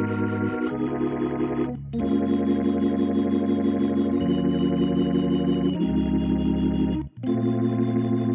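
Sampled organ patch from Native Instruments' Vintage Organs library playing a run of sustained chords, moving to a new chord every second or two, with short breaks about two seconds in and about seven seconds in.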